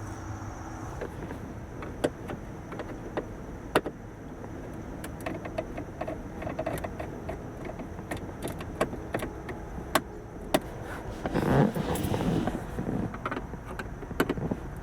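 Screws being undone from a car's under-dash shield panel: scattered small clicks and ticks of the tool and fasteners. A louder scraping rustle comes about three-quarters of the way through as the panel is handled.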